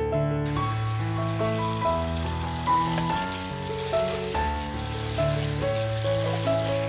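Kitchen tap water running into a stainless-steel bowl of chopped napa cabbage while hands rinse and turn the leaves: a steady hiss that starts abruptly about half a second in. Background music with steady melodic notes plays throughout.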